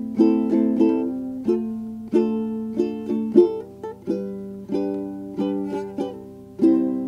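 Background music: a light plucked-string tune in chords, each struck sharply and dying away, about two a second.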